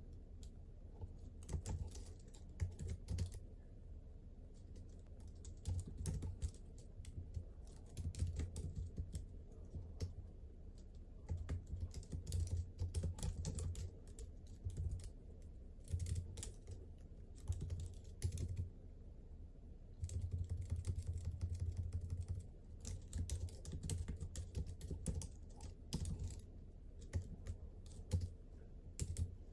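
Typing on the slim Bluetooth keyboard of an iPad folio keyboard case: quick runs of key clicks, broken by short pauses between bursts.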